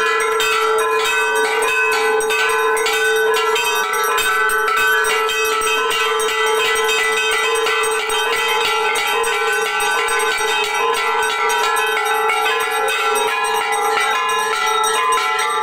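Temple bells rung rapidly and without pause during an aarti, a dense, even clanging over a steady held tone.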